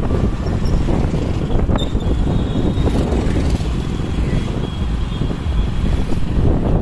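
Steady wind rumble on the microphone over road and traffic noise, recorded from a moving vehicle on a highway as motorcycles and a scooter pass close alongside.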